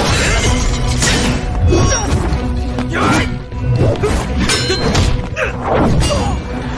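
Animated fight sound effects: several hits and impacts with swishing sweeps, over dramatic background music.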